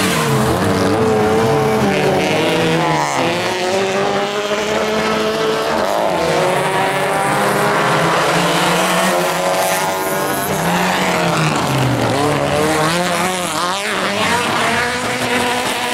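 Several rallycross race cars running hard on a dirt track. Their overlapping engine notes rise and fall again and again as the cars accelerate and lift off through the corners.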